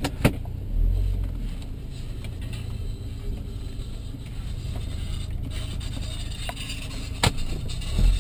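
Car engine running at low revs, a steady low drone, with a few sharp clicks: two at the start and a louder one about seven seconds in.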